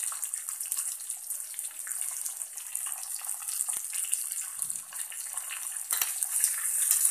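Tadka sizzling in hot oil: curry leaves, chopped green chilies, cumin and mustard seeds frying with a steady high hiss and small crackles, louder once they are stirred about six seconds in.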